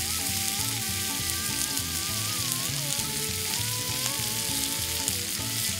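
Crocodile meat sizzling steadily on a hot iron griddle plate over a wood fire. Background music with a melody and a regular bass line plays over it.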